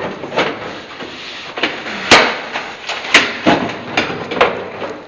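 Repeated sharp blows of a tool on a locked apartment entrance door as it is broken open, about seven irregular knocks with the loudest a little past two seconds and around three seconds in.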